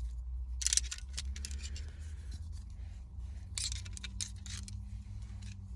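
Sharp metal clicks and light rattling of Leatherman multi-tools being handled and unfolded, a couple about a second in and a cluster a little past the middle, over a low steady hum.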